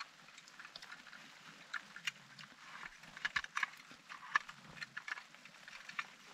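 Irregular small clicks and clinks of metal as a compact camping gas stove is handled and its folding pot-support arms are swung out.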